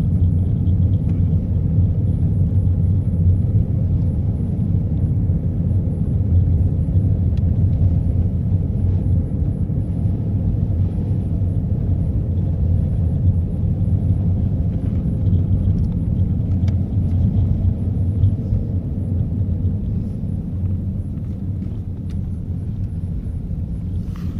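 Steady low rumble of a car's engine and tyres heard from inside the cabin while driving, easing slightly near the end.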